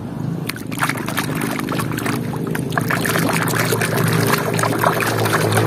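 Water splashing and sloshing as a plastic toy lobster is swished and scrubbed by hand in shallow water, the splashing starting about half a second in and growing busier and louder. A steady low hum runs underneath.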